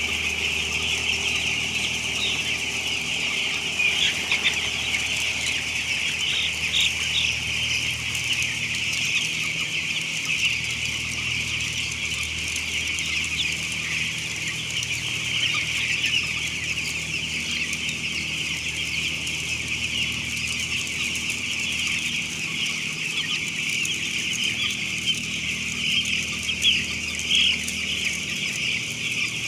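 A large flock of week-old broiler chicks peeping continuously, a dense chorus of many overlapping high peeps, over a steady low hum.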